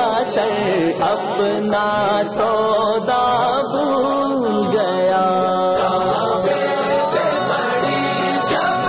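A naat sung by male voices: a chanted melody with several voice parts layered over a held low note.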